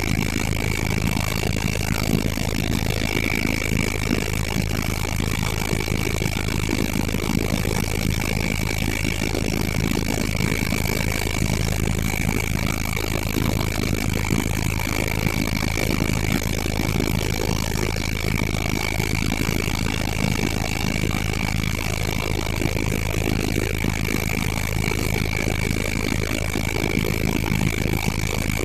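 Helicopter turbine engine and rotors running steadily: an even, unchanging drone with a thin, steady high whine above it.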